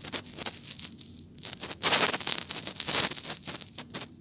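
Rustling, crackling noise with scattered clicks, swelling twice about two and three seconds in.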